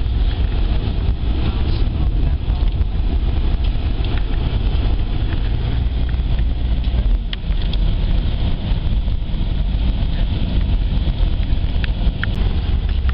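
Steady road and engine rumble heard inside a moving car's cabin, heaviest in the low end, with a couple of faint clicks partway through.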